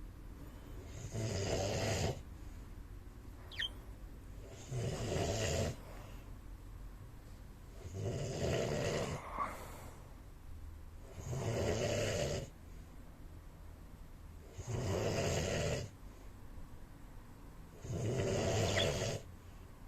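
A man snoring in his sleep, one snore about every three and a half seconds, six in all.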